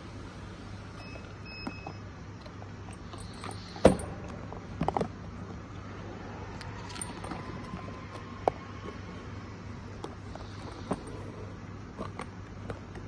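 Automatic box labeling machine running with a steady low hum, with scattered knocks and clicks as cardboard boxes are handled; the loudest is a sharp knock about four seconds in, followed by a short cluster of clicks.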